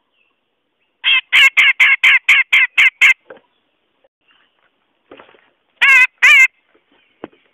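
Cucak jenggot (grey-cheeked bulbul) lure call: a fast run of about nine loud, harsh, nasal notes, about four a second. After a pause, two more notes come about six seconds in.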